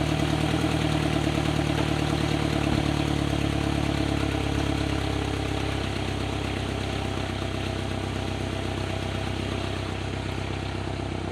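A 2008 Chevy HHR's inline-four engine idling steadily, running again after the cracked upper radiator hose was replaced. The idle eases a little quieter over the span.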